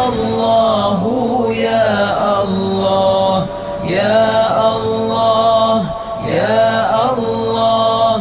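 A voice chanting Islamic zikir in Arabic, slow and drawn-out, in about three long melodic phrases with short breaks between them.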